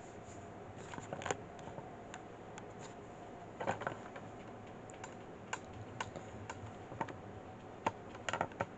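Scattered sharp clicks and taps, a few coming in quick clusters, over a faint steady room hum.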